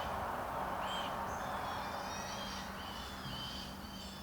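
Small songbirds chirping, with short high calls throughout and a twittering trill about halfway through, over a steady low hum and background hiss.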